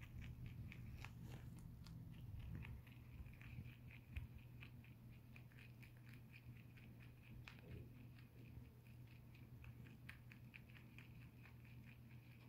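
Lionhead dwarf rabbit chewing hay, a faint run of quick, crisp crunching clicks. The clicks come thick in the first couple of seconds, then thin out and keep going off and on.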